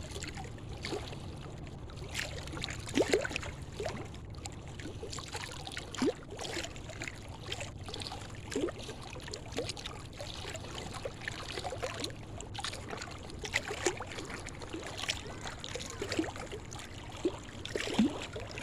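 River water sloshing and slapping against concrete bank-protection blocks, with irregular splashes and gurgles over a steady low rumble; a few louder slaps stand out, one near the end.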